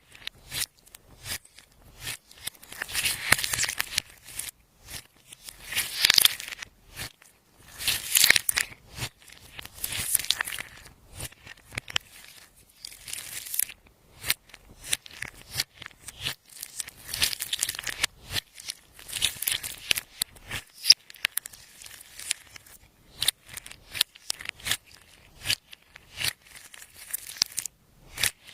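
Clear slime being worked by hand, giving off sticky, crackling clicks in quick, irregular bursts that swell and fade every second or two.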